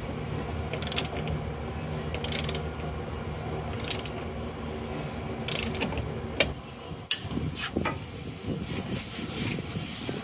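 Ratchet wrench clicking in short runs as it is swung back and forth on the pinion nut of a truck's front differential, with a couple of sharper metal knocks a little past the middle.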